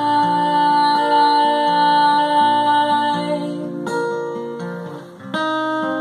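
Acoustic guitar strummed slowly with a woman's voice holding one long sung note for about three seconds, then the guitar alone, with a fresh strum near the end.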